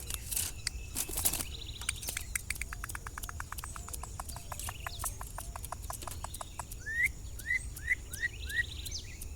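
Campo troupial (corrupião) calling: a fast run of dry clicking notes at about eight a second, two short buzzy rattles, and near the end five short rising whistled notes about three a second. A few brief noisy bursts come in the first second or so.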